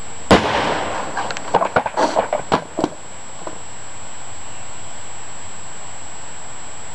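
A 1994 Caravan airbag being set off under a heavy oak pallet: one sharp bang about a third of a second in. It is followed by about two seconds of scattered thuds and clatter as the pallet and its boards come back down.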